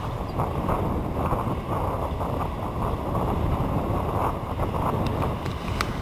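New Holland T7060 tractor's six-cylinder diesel engine running under load while pulling a plough through the soil. Wind buffeting the microphone gives it a rough, fluttering rumble.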